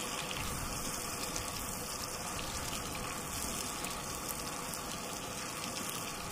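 Salmon fillets frying in a pan of oil, butter and lemon juice on a gas camp stove, a steady sizzling hiss.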